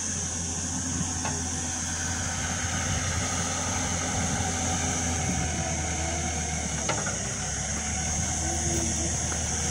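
A steady low hum like a machine or engine running, with a constant high-pitched hiss above it; a faint click about seven seconds in.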